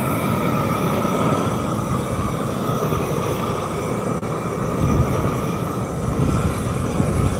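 Power equipment running steadily as it shaves down an asphalt speed bump, a continuous mechanical grinding noise with a faint steady whine through it.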